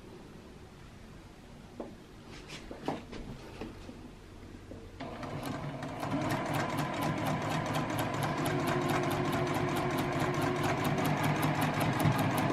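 Juki sewing machine starting up about five seconds in and running steadily, stitching a seam through the quilt top with a rapid, even tick of the needle. Before that, only a few light clicks.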